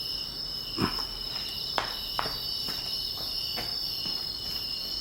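A steady, high-pitched chorus of insects, with a few short clicks and knocks scattered through it.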